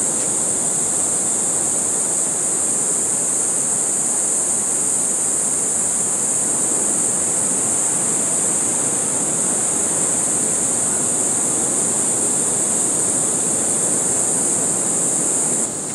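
Steady rush of ocean surf and wind, with a loud, constant high-pitched hiss over it; both drop suddenly just before the end.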